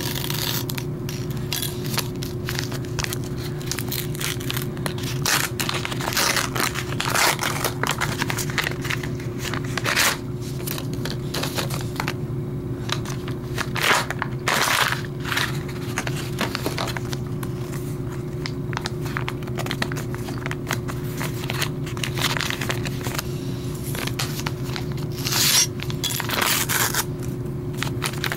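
A paper envelope being opened and handled by hand: irregular rustling, scraping and tearing of paper, with a few louder bursts, over a steady low hum.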